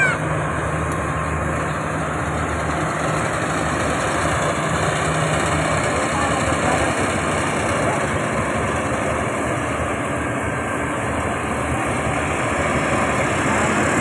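Yanmar AG600A crawler combine harvester running steadily while harvesting rice: a dense, even noise from its diesel engine and threshing machinery, with a low hum that fades about halfway through.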